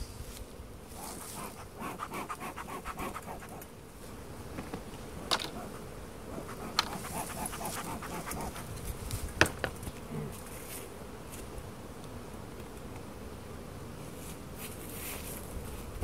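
Honeybees buzzing over an open hive, with the airy puffs of a bee smoker's bellows driving them down into the box. A few sharp knocks come through, about five, seven and nine seconds in, the last the loudest.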